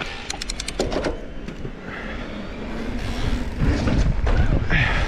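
Wind and rolling rumble on a body-mounted action camera, growing louder as the rider picks up speed, after a quick run of sharp clicks about half a second in.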